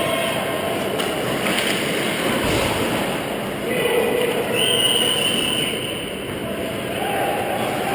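Ice hockey skate blades scraping and hissing on the ice, with squealing tones that come and go for a second or so at a time over a steady rink hum.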